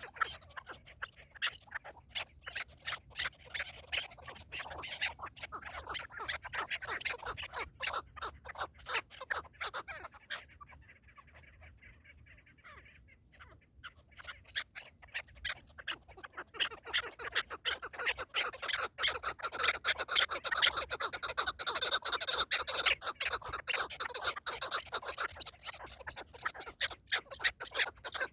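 Partridges calling in a rapid, dense chattering series. The calls fade to a lull about a third of the way in, then return louder and fuller for the rest.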